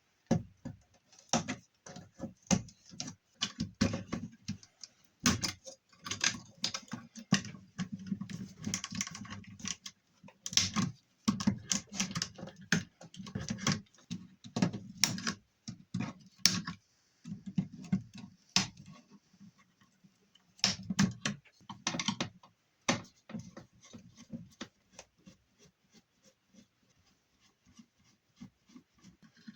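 Irregular clicks, taps and knocks of hand tools against metal and circuit boards as parts are unscrewed and pulled out of a scrapped electronic unit, with brief handling rattles; the noises thin out to a few light clicks in the last several seconds.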